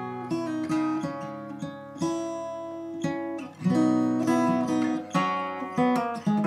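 Background music: plucked notes and chords from a string instrument, with a new note or chord every half second or so.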